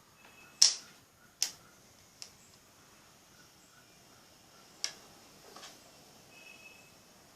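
Four sharp clicks or taps of hard objects, spread unevenly: two loud ones about a second apart near the start, a fainter one soon after, and another about five seconds in.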